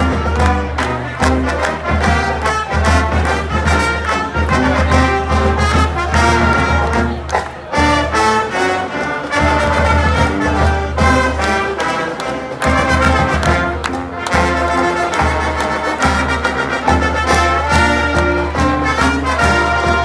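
Brass band music: an upbeat tune with a steady low bass line.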